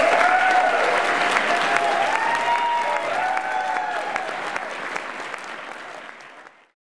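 Audience applauding after a tango dance ends, slowly fading, then cutting off near the end.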